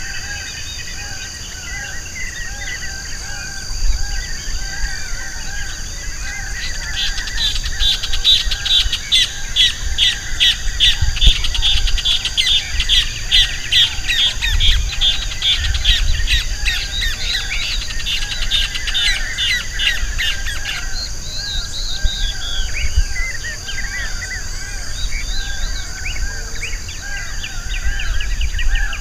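Several wild birds calling and singing together over a steady high-pitched drone. A rapid run of high calls comes in about a quarter of the way through and stops about two-thirds of the way in.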